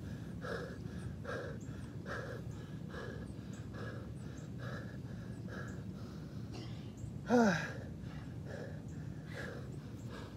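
A man panting hard, out of breath from exhausting exercise, with even breaths a little under one a second. About seven seconds in comes one loud groaning exhale that falls in pitch.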